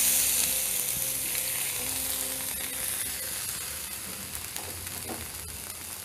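Water sizzling in a hot wok of stir-fried sea snails and spice paste. The hiss is strongest at first and fades over the few seconds.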